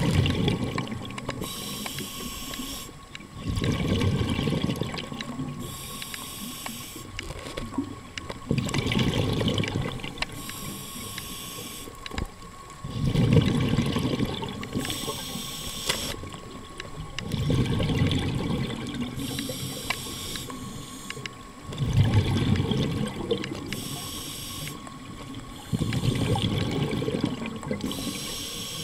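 Scuba diver breathing through a regulator underwater: a hissing inhale alternates with a low rush of exhaled bubbles, in a steady cycle about every four and a half seconds.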